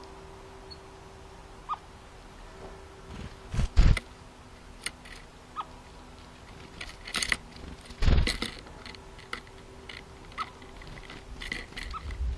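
Small garden birds, a Eurasian blackbird and a tit, landing and taking off close to the microphone. There are a few sudden wing flutters and knocks on the wood, the loudest about four and eight seconds in, and a few faint short chirps between them. A faint steady hum runs underneath.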